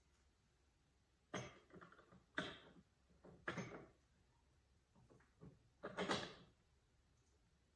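Espresso machine portafilter being fitted into the group head and twisted toward its lock position: about five short knocks and scrapes, the loudest about six seconds in.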